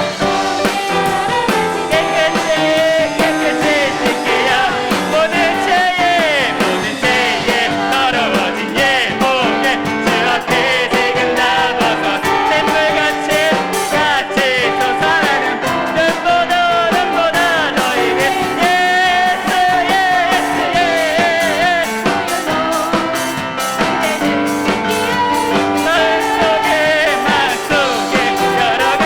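A live worship band playing a praise song: voices singing a melody over piano and a steady drum beat.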